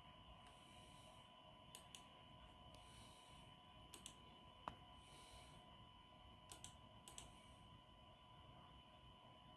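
Near silence with a faint steady electronic tone, broken by a few short sharp clicks, mostly in quick pairs, a little over a second apart.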